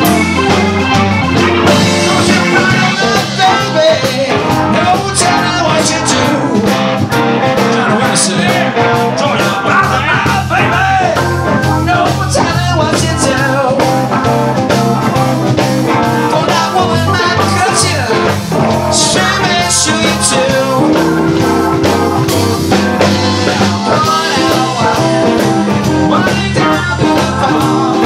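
Live blues band playing loudly: electric guitars, electric bass, drums and organ, with a man singing.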